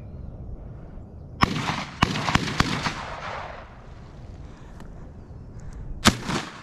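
12-gauge shotgun shots fired at doves on the wing: several sharp shots in quick succession about one and a half to two and a half seconds in, with a rolling tail, then one more loud shot near the end.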